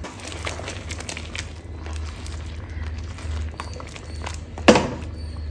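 Chicken in masala simmering in a steel pan, with scattered crackles and sputters over a steady low hum. A single sharp metallic knock comes about four and a half seconds in.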